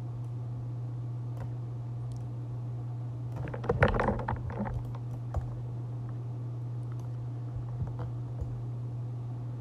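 A quick flurry of computer keyboard and mouse clicks about three and a half seconds in, followed by a few single clicks, over a steady low hum.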